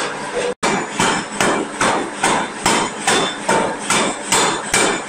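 Giant steam forging hammer striking a glowing hot billet in quick, regular blows, about two and a half a second, starting about half a second in.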